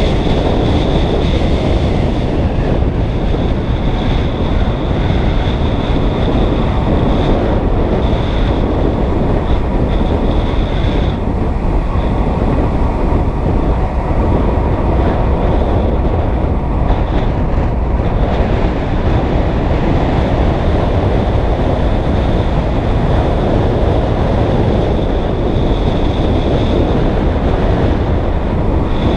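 Wind rushing over the microphone of a bicycle speeding downhill: a loud, steady roar of air with road rumble underneath. A thin high tone comes and goes over it.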